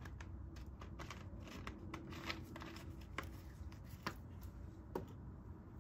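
12-volt oil extractor pump pulling engine oil up a thin tube from the engine's suction port: a low steady hum with scattered small clicks and ticks as the oil is drawn through.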